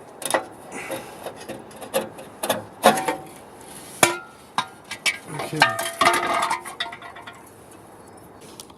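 Irregular knocks and clatter of metal being handled, with a few short ringing metallic clinks about four to six seconds in.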